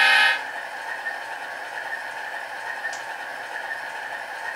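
Diesel locomotive sound from a Soundtraxx Tsunami AT-1000 sound decoder in an HO-scale Kato AC4400CW, played through two small cell-phone speakers wired in series; a steady, thin engine sound with almost no bass, and a brief louder tone at the very start, as the speaker is function-tested.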